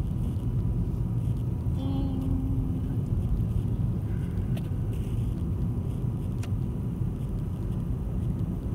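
Steady low rumble of engine and tyre noise heard from inside the cabin of a moving car.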